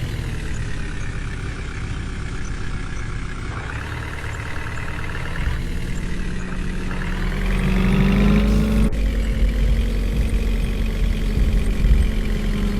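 Diesel engine of a JCB 3DX backhoe loader running as it works, its revs rising partway through and then holding higher, with a sudden break about nine seconds in.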